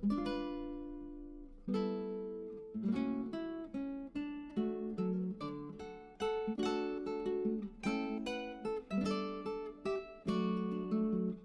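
Background music: acoustic guitar picking a melody, each note plucked and ringing out.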